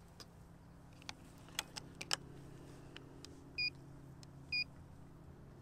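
Digital trigger pull gauge being handled and reset: several light clicks, then two short electronic beeps about a second apart.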